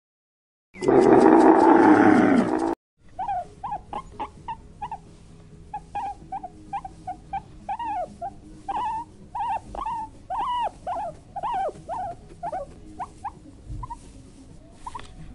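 A loud, deep animal roar or growl lasting about two seconds that cuts off abruptly, followed by a different animal giving a long run of short yelping calls, two or three a second.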